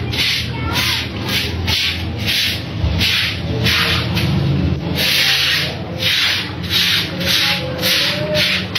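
Stiff scrubbing brush scraping back and forth over a wet concrete floor, in quick rhythmic strokes about two a second.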